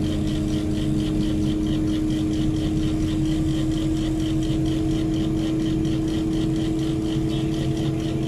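Heavy mobile crane's diesel engine running steadily at idle, with a steady whine and a fast, even ticking above it.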